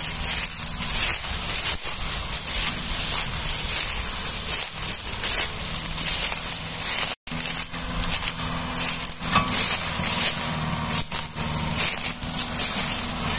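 Kubota tractor's diesel engine running at a steady idle, under a constant crackling and crunching of dry sugarcane trash. The sound drops out completely for a moment about seven seconds in.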